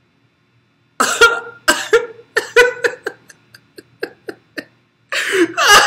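A man laughing into his hand: a burst of laughs about a second in that trails off into shorter, fainter pulses, then a louder burst of laughter near the end.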